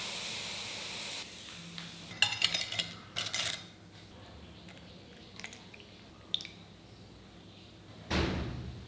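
Hot oil sizzling as fried bondas are lifted out of a brass kadai on a slotted steel spoon, dying away after about a second. A quick run of metal clinks and clatter follows about two to three seconds in. Near the end a ladle pours soup over the bondas in a steel bowl with a short splash.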